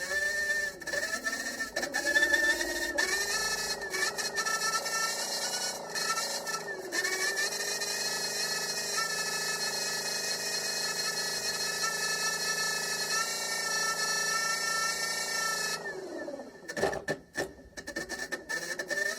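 A motor running with a steady, layered hum whose pitch shifts several times. Near the end it slows and dips briefly, then picks up again.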